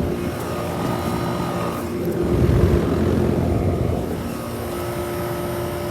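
Goodman central air-conditioner condenser units running: a steady compressor hum under the rushing of the fan.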